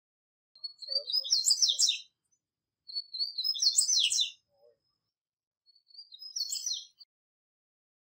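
Wild male double-collared seedeater (papa-capim) singing three short song phrases of quick high notes, each a second or so long with short pauses between; the last phrase is shorter and softer.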